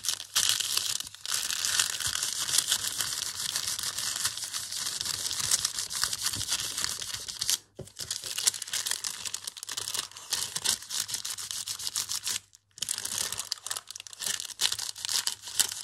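Hands rubbing and pressing thin paper down onto an inked gel printing plate, a continuous crinkling paper rustle. It stops briefly twice, about halfway and about three-quarters of the way through.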